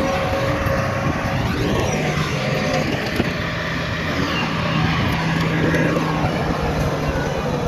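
Diesel engines of heavy earthmoving machinery, a bulldozer and dump trucks, running steadily, with slight changes in pitch as they work.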